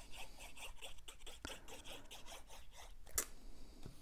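Fine-tip plastic glue bottle's nozzle rubbing across cardstock in quick zigzag strokes, a faint scratchy rasp of about five strokes a second, with a sharp tap about three seconds in.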